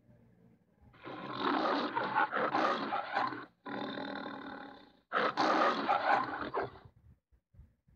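Lion roaring on the MGM studio logo, heard as two loud roars: the first starts about a second in and the second about five seconds in, with a quieter stretch between them.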